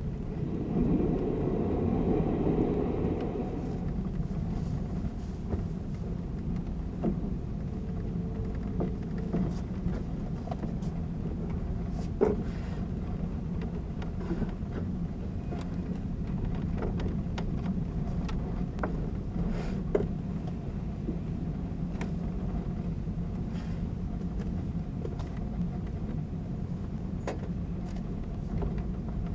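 A 583-series electric sleeper train running at speed, heard from inside the car near a motor bogie: a steady low rumble of wheels and traction motors. There is a louder swell about a second in, and sharp clicks now and then.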